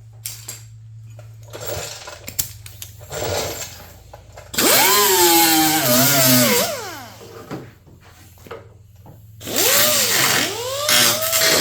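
Small cutoff wheel trimming the sheet-metal hood patch panel in two runs, the first about four and a half seconds in and the second starting near the end, its pitch sagging and recovering as the wheel bites into the metal. Light clatter of the panel being handled comes before the first cut.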